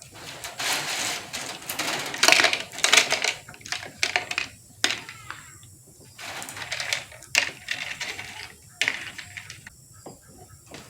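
Small rocks clattering and rattling as they are dropped into a chick waterer, in irregular bursts of many quick clicks with short pauses between them.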